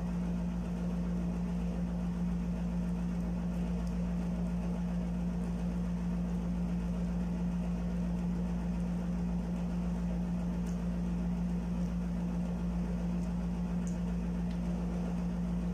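Steady low machine hum at one constant pitch, like an appliance motor running, with a couple of faint light clicks of a plastic spoon in a plastic cup.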